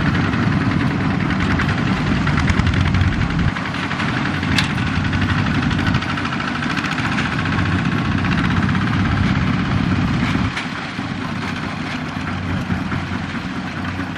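Single-cylinder diesel engine of a Kubota ZT155 two-wheel walking tractor idling steadily with an even, fast chugging pulse.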